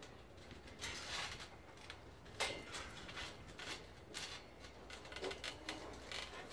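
Scattered soft thuds and rustles of someone stepping about barefoot on a trampoline mat and handling the safety net and its pole.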